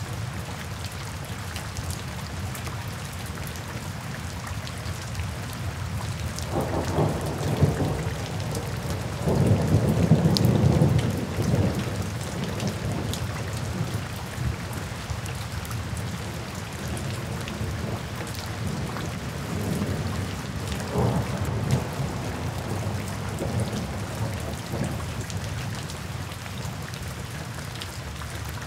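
Steady rain falling, with low rumbles of thunder rolling in: one about seven seconds in, a longer and louder one around ten seconds in, and a fainter roll a little past twenty seconds.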